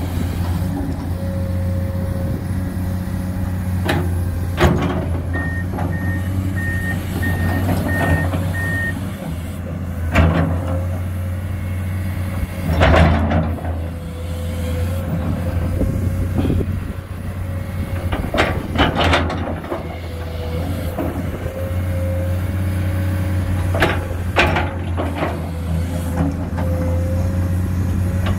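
Komatsu PC210 excavator's diesel engine running steadily under load as the bucket digs, with short bursts of clattering and scraping soil several times. About five seconds in, a reversing alarm beeps about six times.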